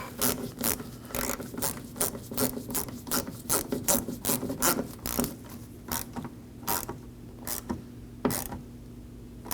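Hand ratchet with a T20 Torx bit clicking as a door-handle screw is snugged down: a run of quick clicks that slows to single clicks spaced further apart near the end.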